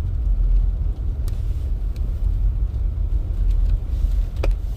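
Steady low road rumble inside a moving car's cabin: tyres running on a snowy, icy road, with the engine underneath. There is one sharp click near the end.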